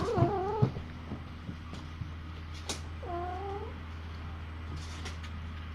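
A cat meowing twice: one short wavering meow at the start and another, rising at the end, about three seconds in.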